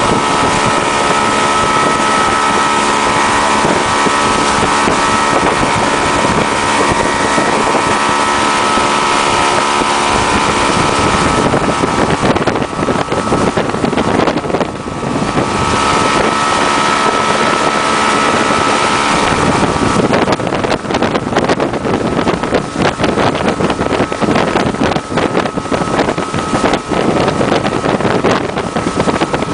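Motorboat engine running steadily at speed over the rush of the boat's wake, with wind buffeting the microphone. The engine's tone sinks behind the water and wind noise for a few seconds midway, then comes back.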